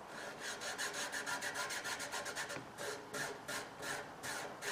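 A fingertip rubbing back and forth on a cloth stretched over a dry washer riffle tray, pressing the cloth down onto a silicone-coated riffle. It makes quick rasping strokes that slow after about two and a half seconds.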